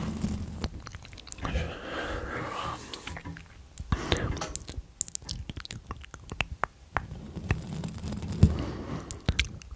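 ASMR mouth sounds close to the microphone: irregular wet clicks and smacks of lips and tongue.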